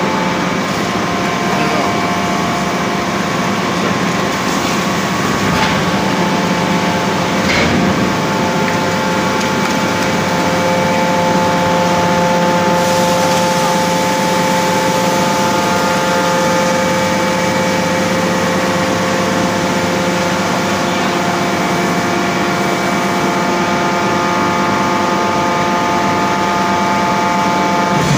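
Hydraulic forging press running: a loud, steady machine hum with a constant whine over it, and a couple of brief knocks about six and eight seconds in.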